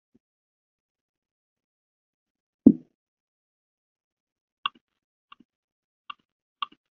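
A single dull thump, then four short, sharp clicks spread over the next two seconds, against silence.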